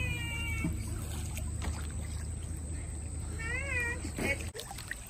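Cat meowing twice, two short calls that rise and then fall in pitch, the first at the start and a shorter one about three and a half seconds in.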